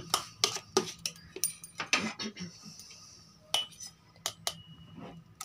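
Steel ladle clinking and scraping against a stainless steel bowl while stirring and scooping thick cream. There is a quick run of knocks over the first couple of seconds, then a few spaced clinks, one with a brief metallic ring.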